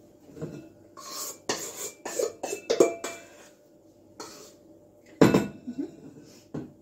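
Stainless steel mixing bowl and metal utensils clinking and knocking, with short metallic ringing, then the bowl knocking down on the steel benchtop a little after five seconds in, the loudest sound.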